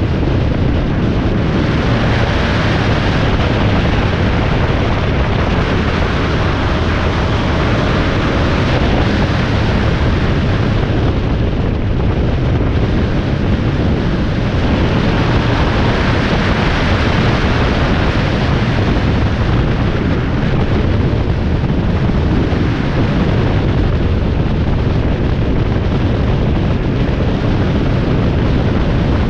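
Loud wind noise on the microphone over the road noise of a vehicle travelling at highway speed, swelling and easing in long gusts.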